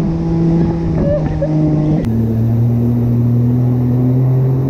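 Jet ski engine running at speed while towing a sea biscuit, over a steady rush of spray. About two seconds in its pitch drops suddenly, then creeps slowly back up.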